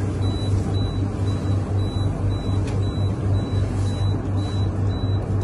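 A steady low hum over an even wash of background noise.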